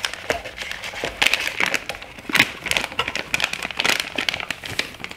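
Plastic soft-bait package crinkling and crackling as hands pull it open: a dense run of sharp crackles, loudest a little past the middle.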